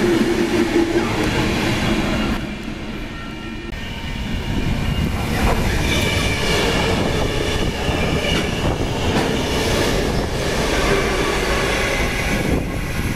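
Freight trains passing close by: first the wheels and wagons of a loaded coal train rolling past, then, from about two and a half seconds in, a string of diesel-electric locomotives running through with their engines running and steady wheel-on-rail noise.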